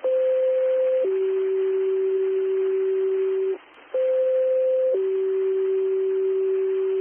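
Two-tone sequential paging tones over the fire dispatch radio: a higher tone for about a second drops to a lower tone held about two and a half seconds, then after a short break the same pair sounds again. These are station alert tones sent just before a dispatch.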